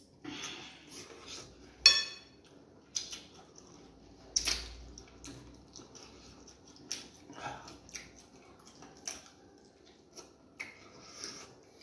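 Close-up eating of fufu and egusi soup: wet squelches and mouth smacks with scattered clicks of dishes, the sharpest click about two seconds in.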